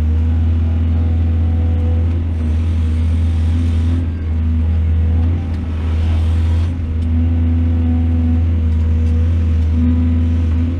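Large excavator's diesel engine running steadily with a deep hum, with a hiss coming in twice near the middle.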